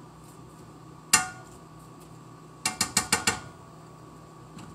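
Metal kitchenware clatter: one sharp clink with a short ring about a second in, then a quick run of about six sharp clicks a little later.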